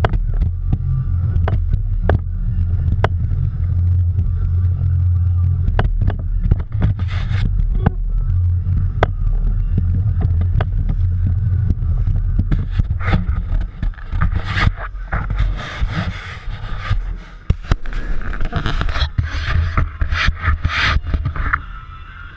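Steady low drone of the fishing boat's engine with water rushing by, and scattered sharp clicks throughout. In the second half, splashing and scraping at the boat's side as a hooked fish is brought in on the line, while the drone fades near the end.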